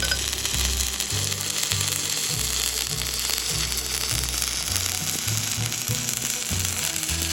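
Stick welding arc crackling and sizzling steadily, struck suddenly at the outset, over background music with a repeating bass line.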